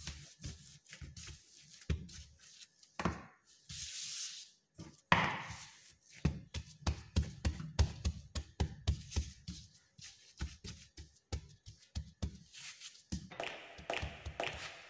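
Gloved hands kneading a large ball of risen yeast dough on a countertop: a run of soft, irregular thuds and slaps as the dough is pressed and turned.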